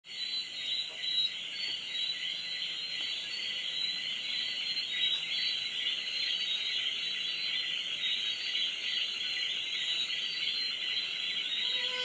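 Steady, dense, high-pitched chorus of calling insects, a jungle night ambience. Just before the end a held musical tone comes in.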